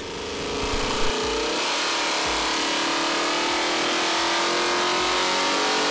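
Chevrolet 427 big-block V8 on an engine dynamometer making a wide-open-throttle pull on a 150-horsepower shot of wet nitrous at 31 degrees of timing. It comes up to full loudness within the first second, then its pitch rises steadily as the revs climb.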